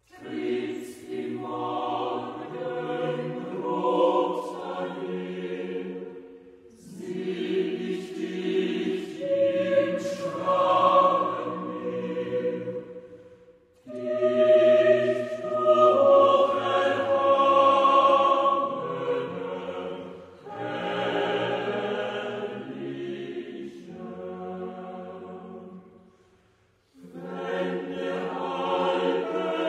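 A choir singing in long phrases, with brief pauses between them every six or seven seconds.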